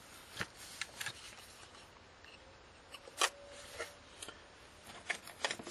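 Hands handling a small plastic solar panel and a floodlight housing: scattered light clicks and rustles, with a sharper knock about three seconds in as a part is set down.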